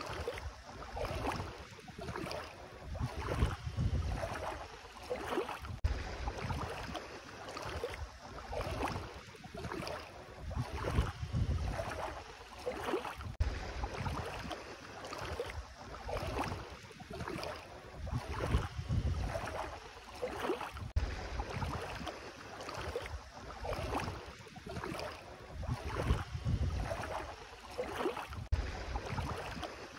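Bare feet wading through ankle-deep sea water, each step splashing and sloshing, roughly one step a second, with wind rumbling on the microphone.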